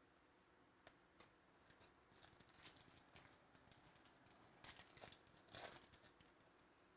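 A foil trading-card pack being torn open by hand, its wrapper crinkling. There are faint crackles first, then two short, louder rips about a second apart.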